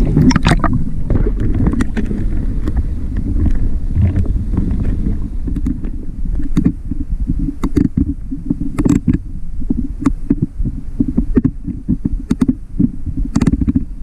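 Muffled underwater rumble as a freediver goes down. From about six seconds in, a run of irregular clicks, several a second, from a hand-worked call fish: a toothed-wheel rattle on the speargun used to draw fish in.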